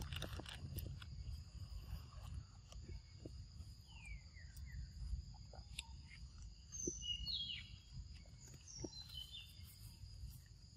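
Faint outdoor ambience: a few short, falling bird chirps over a steady high insect hum and a low rumble, with scattered soft clicks of a young monkey eating mango.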